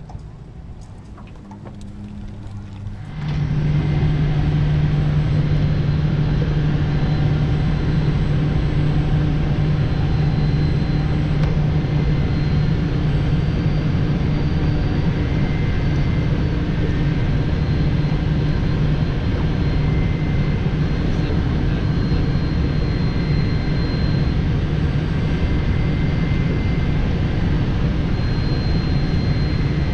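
A loud, steady mechanical drone with a strong low hum and a few faint high whining tones, starting suddenly about three seconds in and holding steady.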